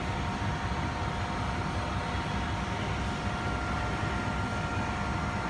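Favretto grinder's machinery running with a steady hum: a low rumble with a few steady whining tones over it.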